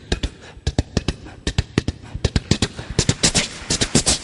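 A mimicry artist imitating a train crossing a bridge with his mouth: rapid clusters of sharp clicks and pops standing for the wheels clattering over the rail joints, getting denser and louder in the second half.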